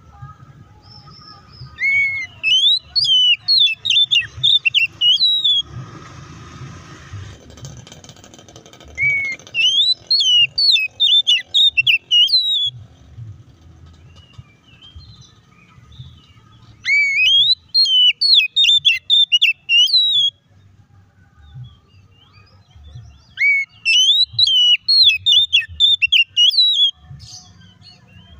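Oriental magpie-robin singing in four bursts of rapid, varied whistled notes, each about three seconds long, with pauses between. A brief hiss comes between the first two bursts.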